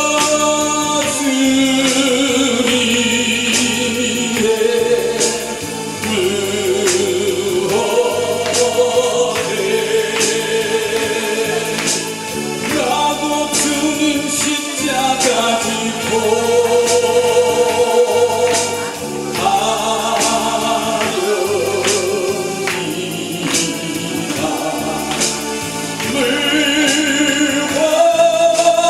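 A man singing a Korean gospel song into a microphone, accompanied by a Korg Pa600 arranger keyboard, with a steady beat under the melody.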